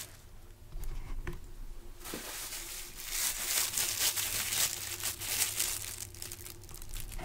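Clear plastic wrapping crinkling and rustling as a hand handles a bagged aerial firework shell, busiest in the middle.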